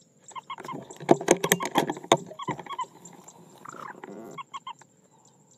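Clucking bird calls: short notes repeated in quick runs. A burst of loud sharp clicks or knocks comes between about one and two and a half seconds in.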